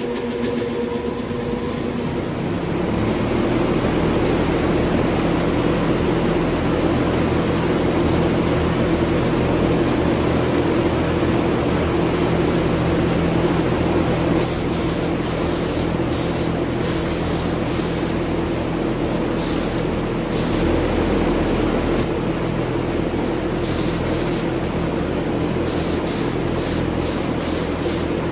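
Large shop exhaust fan running with a loud steady drone that swells about two or three seconds in. From about halfway through, an air-fed paint spray gun hisses in short bursts, on and off, as red paint is sprayed onto steel wheels.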